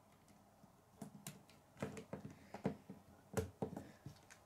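Plastic K'nex pieces clicking and knocking as the model is handled and parts are snapped together on a wooden table: a scattered run of sharp clicks starting about a second in.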